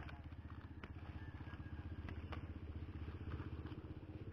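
A small engine running steadily with an even, fast low throb, with a few faint clicks over it.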